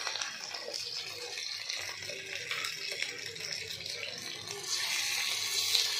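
Fish frying in oil on a flat iron tawa, a steady sizzling hiss. It swells louder near the end as another coated piece goes onto the hot griddle.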